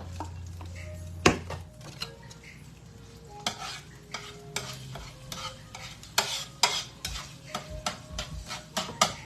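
A utensil stirring and clinking against cookware, with a loud knock about a second in and a run of quick clinks through the second half.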